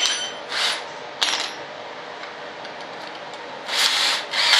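Metal tools being picked up and set down on a workbench: a sharp metallic click at the start and another about a second in, each with a brief ring, then two short scraping rustles near the end.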